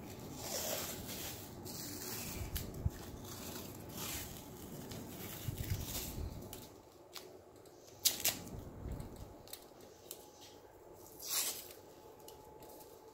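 White athletic tape being pulled off the roll and wrapped around an ankle, with soft rustling of tape and hands and a few short, sharp peeling rips as tape comes off the roll, the sharpest about eight seconds in.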